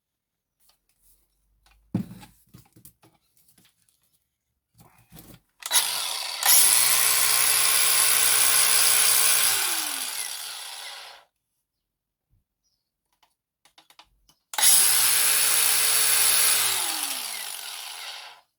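DeWalt DCG412N 18V cordless angle grinder run twice, each time starting up sharply, running steadily for about three to four seconds, then winding down with a falling pitch after the trigger is released. A single knock comes about two seconds in.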